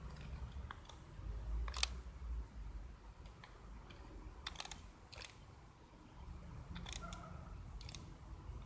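A handful of short, sharp light clicks at irregular intervals over a low rumble of wind on the microphone.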